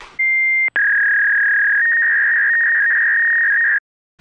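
Test-card tone: a short, higher-pitched beep, then a loud, long, steady lower tone lasting about three seconds that cuts off suddenly.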